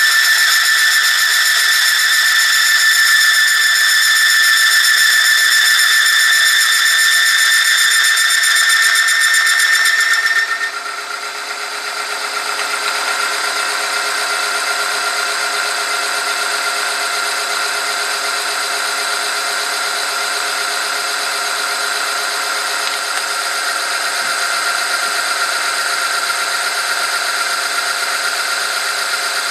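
Oil-film strength testing machine running: the electric motor turns a steel test ring against a loaded metal sample in hot engine oil, giving a loud, steady high-pitched friction squeal. About ten seconds in, as another weight goes on the loading lever, the squeal drops to a lower pitch and turns rougher, then holds steady.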